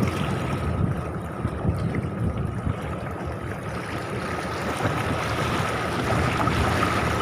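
Gusty wind rumbling on the microphone over a steady rush of water, with a thin steady high tone underneath.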